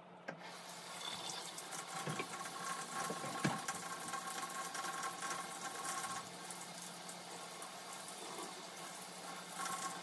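Kitchen tap running water into a stainless steel sink while a greasy sharpening stone is rinsed and rubbed clean under the stream. There is a sharp knock about three and a half seconds in.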